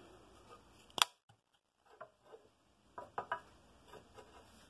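One sharp click about a second in, then several light knocks and taps as a cedar block and a thin cut-off slice of it are handled and set down on a scroll saw's metal table. The saw motor is not heard running.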